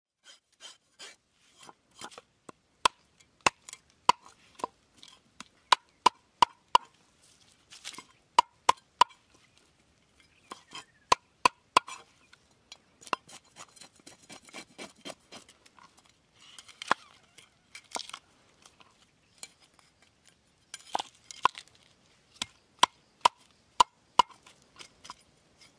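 Large knife scaling a fish on a wooden chopping board: sharp knocks of the blade on the board, with a short ring, often in quick runs of two to four, and softer scraping of scales between them.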